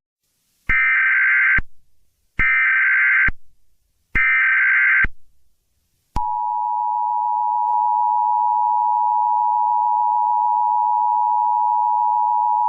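Emergency Alert System alert tones: three short bursts of SAME header data about a second apart, then, about six seconds in, the steady two-tone EAS attention signal (853 and 960 Hz).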